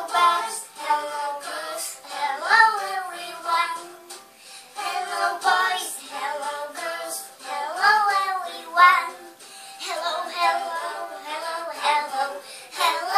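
A young girl singing a song in short phrases, with brief breaks about 4 and 9.5 seconds in.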